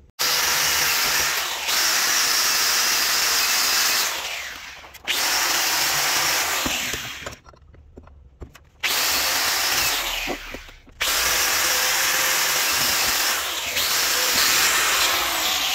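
Electric angle grinder running against a steel U-joint yoke, cleaning out the bores where the U-joint caps seat. It runs in four long bursts and winds down briefly between them.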